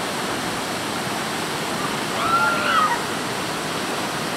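Whitewater rapids of the Nive river rushing steadily. About two seconds in, a brief distant shout rises over the water.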